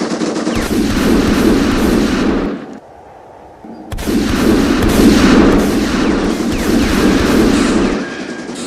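Added sound effect of automatic gunfire: rapid, dense firing in two long bursts, broken by a short pause about three seconds in.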